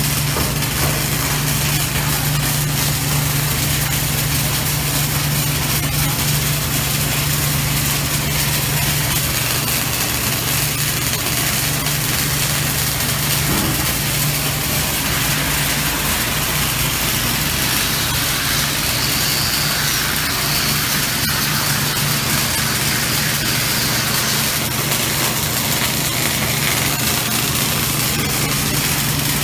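Automatic pipe-welding heads at work: a steady hiss from the welding arcs over a constant low machinery hum, unbroken throughout.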